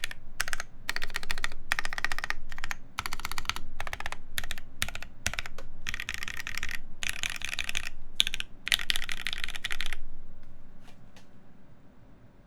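Fast typing on a top-mount mechanical keyboard with lubed Gateron Ink linear switches, an aluminum half plate and GMK keycaps: runs of quick keystrokes clacking. The typing stops about ten seconds in, with a couple of lone key presses shortly after.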